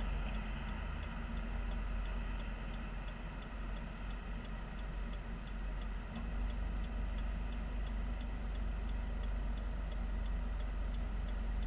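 Car turn-signal indicator clicking steadily, about two or three clicks a second, over the low hum of a car idling in traffic, heard from inside the cabin.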